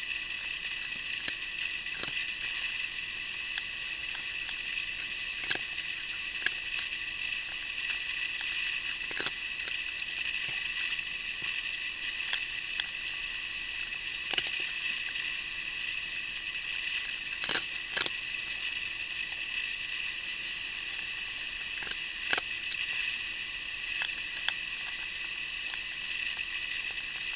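A steady hiss with scattered soft clicks and ticks every second or two.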